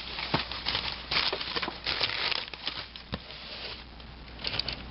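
Computer power-supply cables and plastic connectors being handled: scattered small clicks and rustling.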